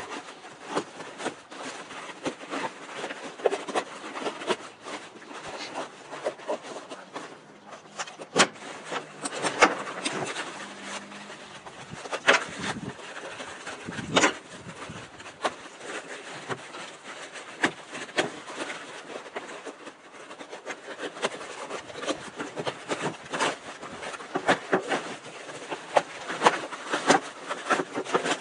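Nylon MOLLE pouch straps and rucksack fabric being handled and pulled through the webbing: irregular rustling and scraping of nylon, with scattered sharp clicks.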